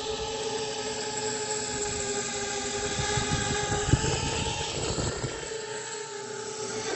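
Brushless motors and propellers of a 6-inch FPV quadcopter (T-Motor 2203.5 1500kv on 6S) whining at a steady pitch at mid throttle, over a rough low crackle and with a sharp bump about four seconds in. These are the odd mid-throttle sounds that the owner suspects come from a tuning issue.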